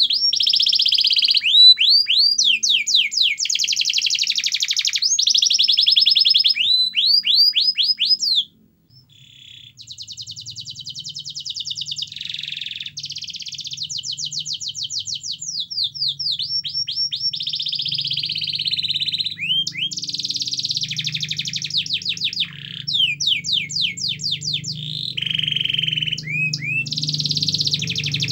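Domestic canary singing, a long run of rapid rolling trills and repeated swooping whistled notes, with a brief pause about eight seconds in.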